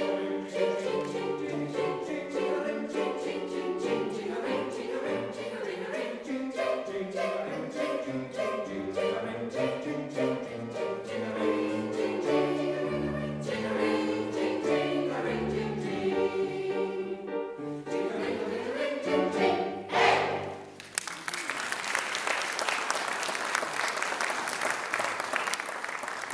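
Choir singing a lively Christmas song with accompaniment, ending about twenty seconds in on a loud final note, followed by audience applause.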